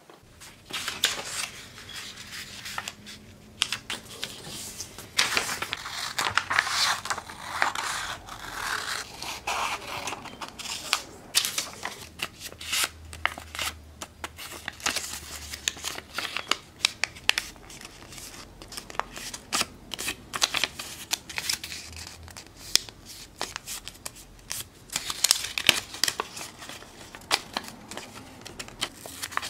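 Hand handling noise of homemade props: irregular snipping, scratching and crinkling, with no steady tone.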